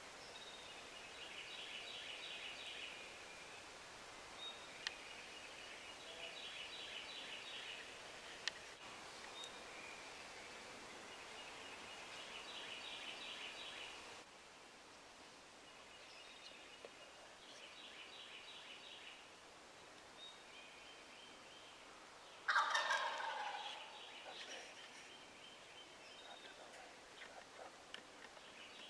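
Wild turkey gobbler gobbling repeatedly, fairly faint, about every five seconds, with one much louder gobble about two-thirds of the way through.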